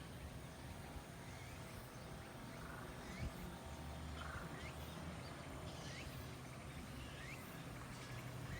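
Faint animal calls: short rising chirps about a second apart, over a low steady hum.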